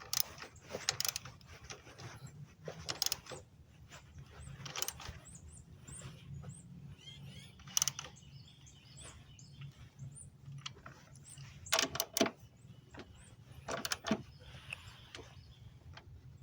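A socket ratchet clicking in short bursts as the motor mount bolts on a Toyota Camry are worked, with a few separate sharp clicks later on. Faint bird chirps come through in the middle.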